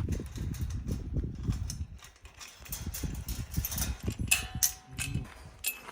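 Footsteps on a dirt path, an uneven run of dull thuds, with a few short high-pitched squeaks in the second half.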